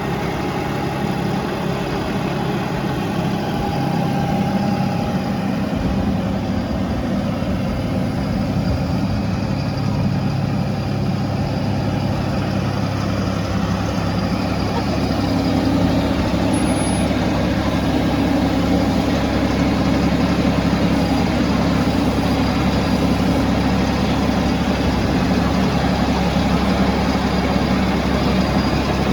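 Tractor engine running steadily as the tractor is driven and manoeuvred, getting somewhat louder about halfway through.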